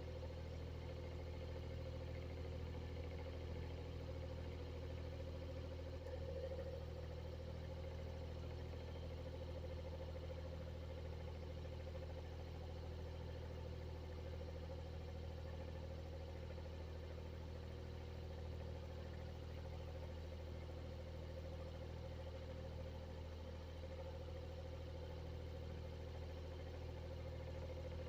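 Electric exhaust fan running steadily, a low hum with a constant mid-pitched tone over it.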